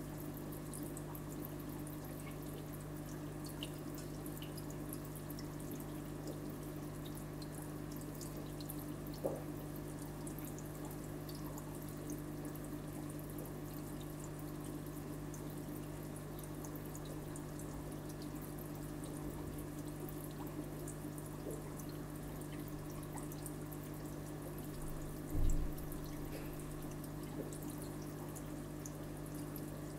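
Aquarium filter running: steady trickling and dripping water over a low electric hum, with one dull low bump near the end.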